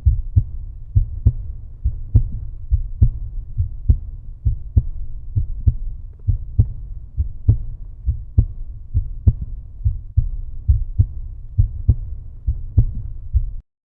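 Outro music: a deep, throbbing bass beat pulsing a little faster than once a second. It stops abruptly near the end.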